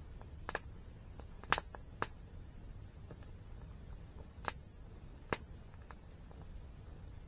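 Wood fire crackling: a handful of sharp, irregular pops from the burning logs, the strongest about one and a half seconds in, over a steady low rumble.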